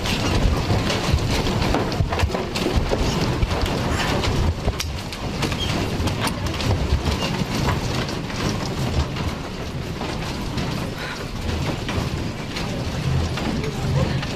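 A building shaking in a strong earthquake: a continuous low rumble with dense clattering and rattling of the room's fittings and furniture.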